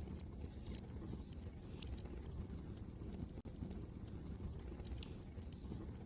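Wood fire crackling in a fireplace, with irregular sharp pops and snaps over a steady low rumble of wind.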